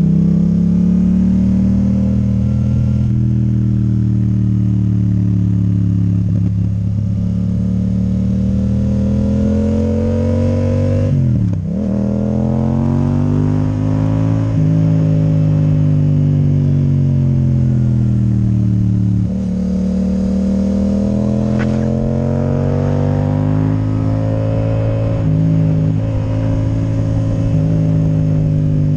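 Yamaha MT-07 parallel-twin engine through an Akrapovič titanium exhaust with the dB killer removed, pulling at road speed as the rider rolls on and off the throttle. The note falls and rises slowly, dips sharply and picks up again about a third of the way in, and steps abruptly in pitch about two-thirds through, as gears change.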